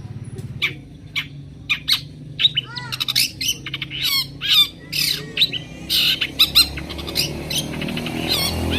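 Long-tailed shrike (cendet) calling in a rapid string of short, sharp notes and harsh squawks, with a few quick arching whistles, over a low steady hum.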